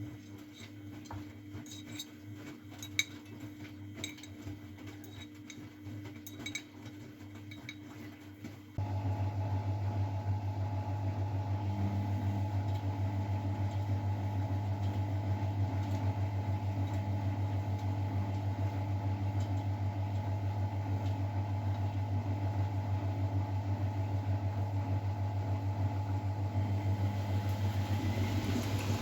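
Miele Novotronic W912 washing machine running: a low hum with light clicks and rattles, then about nine seconds in a louder steady hum cuts in and holds.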